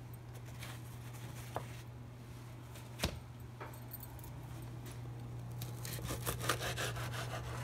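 Long knife sawing through a baked stuffed bread on a wooden cutting board: a run of quick cutting strokes in the last two seconds. A single sharp knock about three seconds in, over a steady low hum.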